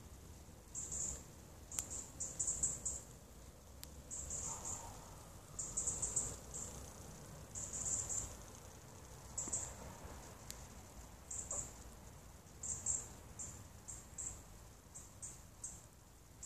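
Insects chirping: short, very high-pitched chirps repeating irregularly about once a second, often in quick groups of two or three.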